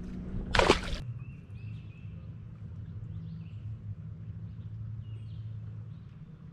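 A short, loud rushing noise about half a second in, then a low steady hum with faint bird chirps over it.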